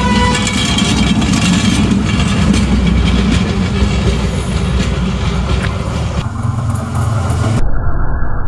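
Diesel train approaching along the track and coming close: a steady low engine rumble with wheel-on-rail noise. About three-quarters of the way through, the sound suddenly turns muffled as the treble drops away.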